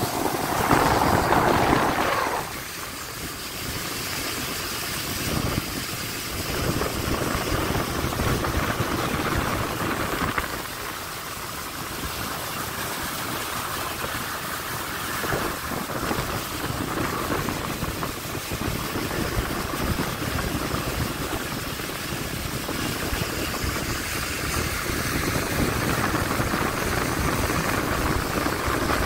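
A boat's engine running steadily, louder for the first two seconds or so.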